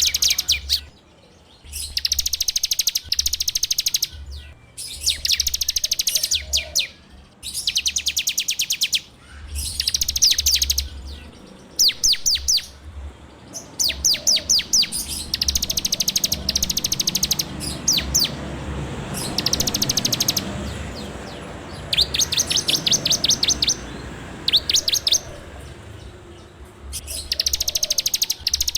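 Ciblek (a prinia) singing its rapid 'ngebren' song: short bursts of fast, evenly repeated high, sharp notes, each about a second long, coming one after another with brief pauses. Faint low rushing noise builds up in the background around the middle.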